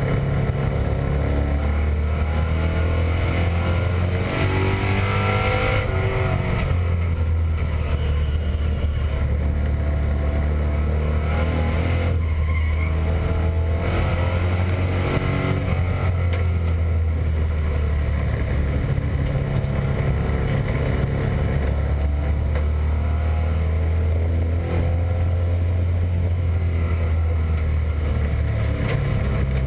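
Stock race car's engine heard from inside the cockpit, running hard, its pitch climbing several times as it accelerates, with brief easings between.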